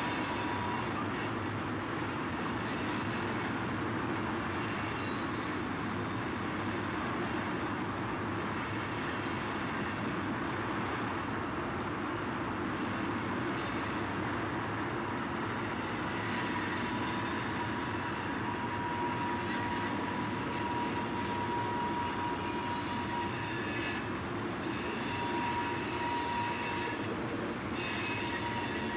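Freight train of tank cars and covered hoppers rolling steadily past, its wheels running on the rails, with faint high-pitched wheel squeal coming and going, most noticeable in the second half.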